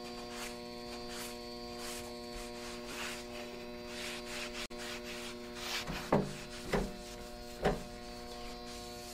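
A steady electrical hum runs under soft, repeated wiping strokes as oil is spread and wiped over the griddle's cooking surface. In the second half come about four dull knocks.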